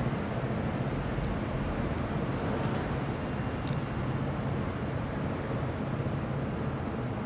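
Steady low engine rumble of a passing new-built bulk carrier, under a steady rushing hiss.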